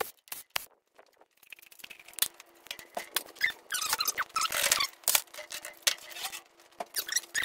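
Sped-up workshop sounds of a 4L60E transmission's front pump being unbolted with a cordless driver and pulled off the case: a rapid string of metallic clicks and knocks mixed with high, squeaky chirps.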